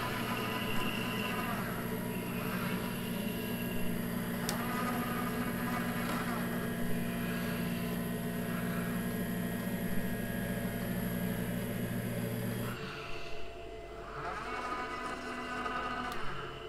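Small robotic painting arm's joint motors whirring in short spells as it moves a paintbrush, over a steady electrical hum that cuts off abruptly about three-quarters of the way through.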